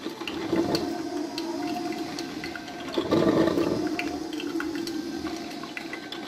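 DeLonghi drip filter coffee maker brewing: a steady low hum with gurgling, spluttering bursts as the heated water is pushed up to the filter, the biggest about three seconds in, and small ticks and pops between them.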